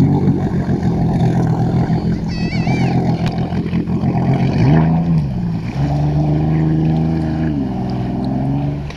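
Jet ski engine opening up suddenly and running hard as the craft pulls away. The engine note dips and climbs again about halfway through, and drops near the end as the throttle eases.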